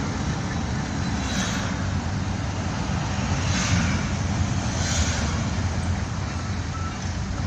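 Steady low road and engine rumble of a moving vehicle, with brief hissing swells about a second and a half, three and a half and five seconds in.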